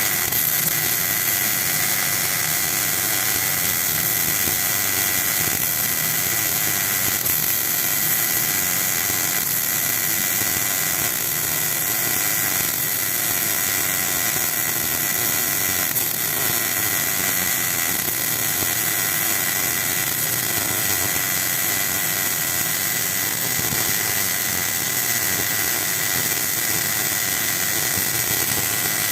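MIG welding on the steel shell of a refrigerator compressor: a steady hissing arc with a constant high whine, unbroken throughout.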